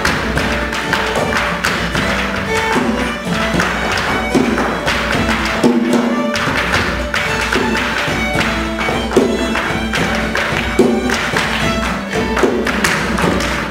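A fiddle playing a lively traditional tune, with the sharp rhythmic taps of a dancer's shoes striking the stage floor throughout.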